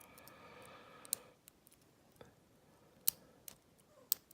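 Lock pick and tension wrench working the pin stack of an old American Lockwood pin-tumbler cylinder: scattered small, sharp metallic clicks of the pins popping as the lock is raked.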